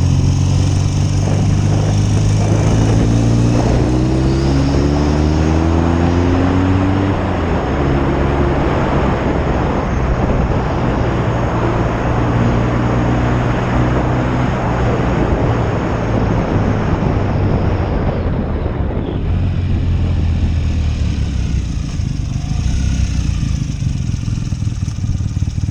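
1972 BSA Lightning 650 parallel-twin motorcycle engine running under way, its pitch climbing for about seven seconds, then dropping and holding steadier, with wind rushing over the microphone.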